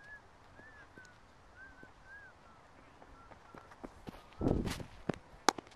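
Faint bird chirps, then quick running footsteps about four and a half seconds in and one sharp crack of a cricket bat striking the ball near the end.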